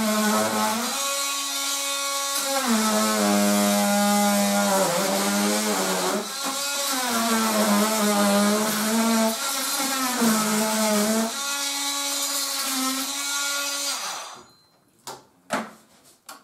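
Makita cordless oscillating multi-tool cutting through an old window-frame upright, its motor whine wavering in pitch as the blade bites. The tool stops about fourteen seconds in, followed by a few sharp knocks.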